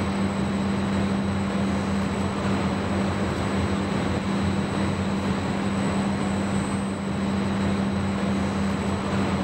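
Car factory hall ambience: a steady machinery hum under a constant rushing noise like ventilation, with a faint high whine.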